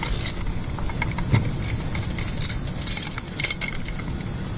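Scattered light metal clinks and knocks from tools and parts being handled while the four-wheeler is taken apart, over a steady low rumble and hiss.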